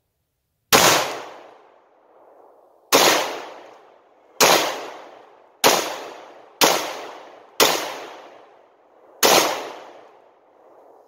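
Seven shots from a Glock 19 Gen 4 9mm pistol, fired one at a time at an uneven pace, each followed by a fading echo.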